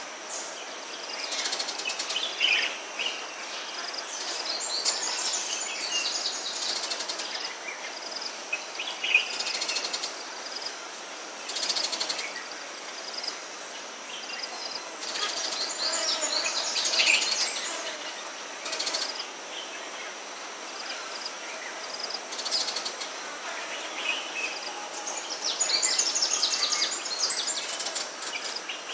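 Dry-forest ambience: several birds calling and singing in repeated short phrases, over a steady high insect drone.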